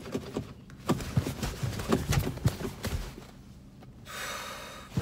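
Car seatbelt webbing being gripped and tugged, giving a string of soft knocks and rustles, then a brief hiss about four seconds in.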